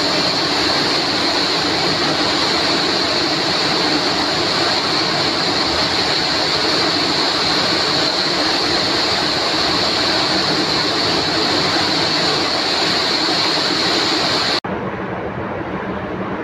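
Steady, loud rushing water noise with a strong hiss. About three-quarters of the way through it cuts off suddenly and gives way to a softer, duller wash of surf.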